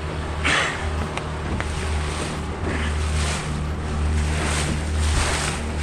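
A motorboat's engine runs at a steady low hum while the hull moves through calm water. Water rushes and splashes along the hull in surges about once a second, and wind buffets the microphone.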